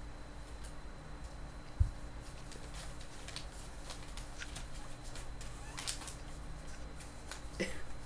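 Dachshund puppies scuffling on newspaper: scattered light clicks and rustles of paws and paper, with one dull thump about two seconds in.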